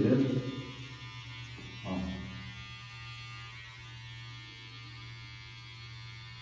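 Electric hair trimmer running with a steady buzzing hum while it marks a light guide line in the hair for a high fade.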